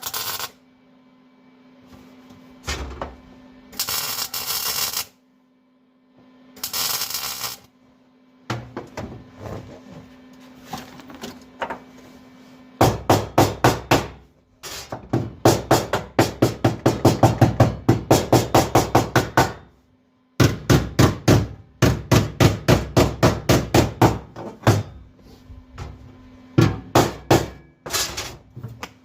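A few short bursts of tack welding on the car's floor patch, then a hammer beating the sheet-metal patch down in quick runs of blows, about five a second, with short pauses between runs.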